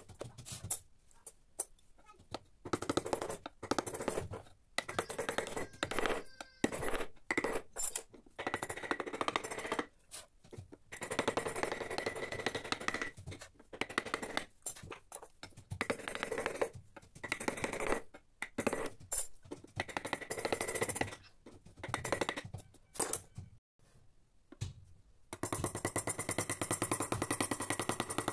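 Hand gouges and chisels cutting teak, pushed by hand in short scraping strokes with brief pauses between. About 25 seconds in, steady music with a quick, even beat comes in.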